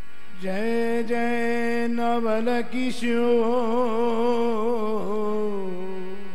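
A male voice singing one long held, ornamented note of a Hindi devotional bhajan. It starts about half a second in, bends and wavers in pitch through the middle, and fades out near the end.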